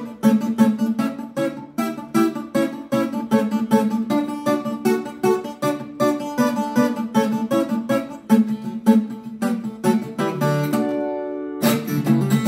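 Viola caipira, the Brazilian ten-string folk guitar, picked fingerstyle in a pagode rhythm: a quick run of plucked notes and chords. Near the end the playing stops briefly and the strings die away, then a loud chord rings out.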